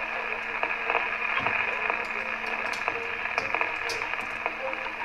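Radio static: a steady hiss narrowed to the radio band, with a constant low hum and scattered faint crackles and ticks.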